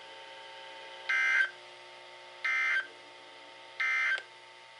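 NOAA Weather Radio SAME end-of-message code: three short digital data bursts, each a buzzy warble, about a second and a half apart, marking the end of the warning message. A faint steady hum lies underneath.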